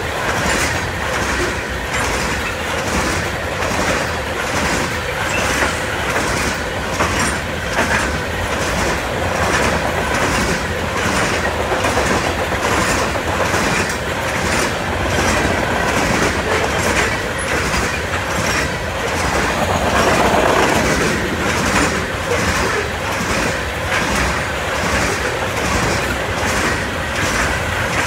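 Loaded covered hopper cars of a freight grain train rolling past at close range: a steady rumble of steel wheels on rail, with a regular clickety-clack of wheel clicks repeating about once or twice a second.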